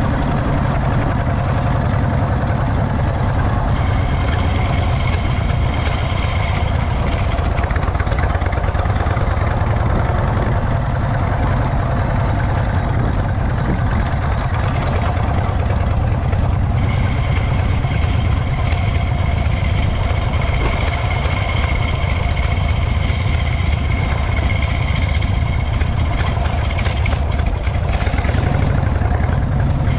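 Harley-Davidson Shovelhead air-cooled V-twin engine running steadily, without big revs.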